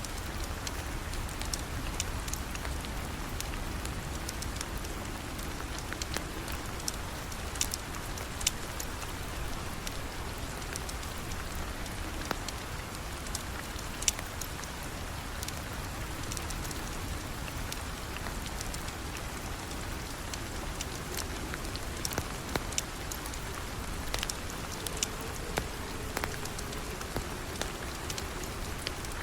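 Steady rain falling, with scattered sharp pops and ticks heard throughout.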